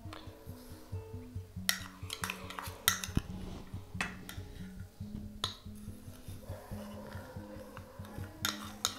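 Metal spoons clinking and scraping against a steel saucepan and a plastic bowl as sugar is spooned into thick custard and stirred: a dozen or so sharp, irregular clinks. Soft background music plays underneath.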